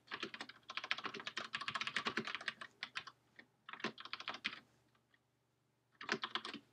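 Typing on a computer keyboard: a fast run of keystrokes for about three seconds, another short burst a second later, a pause, then a few more keys near the end.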